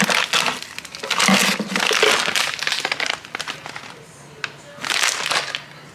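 Crinkling and rustling noises in a string of irregular bursts, several in the first three seconds, a quieter pause, then another burst near the end.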